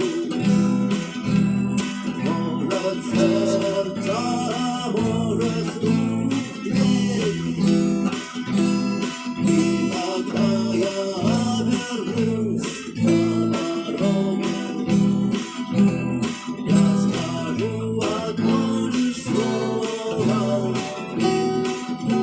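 Instrumental passage of a song played on strummed guitar: steady rhythmic chords with no singing.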